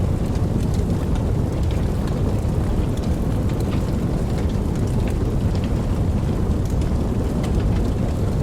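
Steady rain: a deep, even rumble with scattered drop ticks on top.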